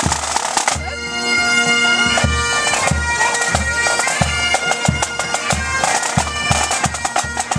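Pipe band marching past: bagpipes playing a tune over Premier snare drums rattling and a steady bass drum beat of about two strokes a second. The pipes become clear about a second in.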